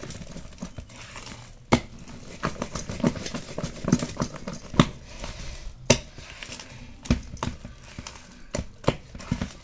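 A hand beating thick urad dal batter in a steel bowl: irregular wet slaps against the batter, with a few sharper knocks. The batter is being whipped to lighten it for soft badi.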